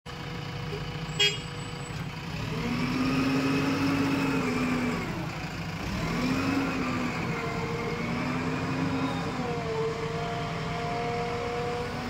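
JCB 3DX backhoe loader's diesel engine running and revving as the machine manoeuvres with a loaded front bucket, a whine rising and falling several times with the revs. A sharp click about a second in.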